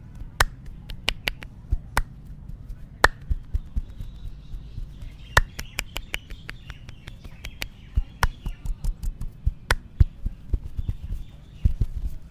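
Head massage: sharp snapping clicks from the masseur's hands and fingers, scattered at first, then a quick run of about five a second. Dull low pats come near the end.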